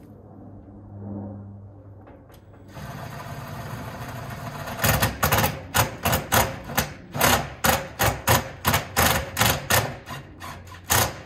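Cordless drill driving a self-tapping screw into a corrugated steel fence panel: the motor runs, then about two seconds later a quick, irregular run of loud sharp clicks, about three a second, as the screw bites into the sheet metal.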